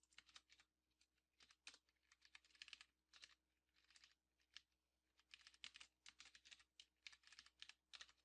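Faint computer keyboard typing: short irregular bursts of keystrokes, a few keys at a time, with pauses between.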